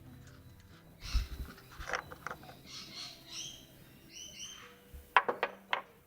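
Hand handling noises from fitting a Mugen oil cap: scattered clicks and scrapes, a few short high squeaks in the middle, and three sharp clicks near the end.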